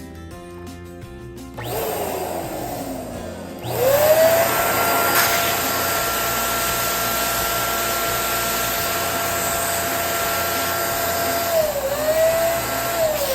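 Electric balloon inflator running: its motor spins up with a rising whine about four seconds in, holds a steady pitch with a rush of air while a balloon fills, dips briefly near the end, and winds down as it is switched off.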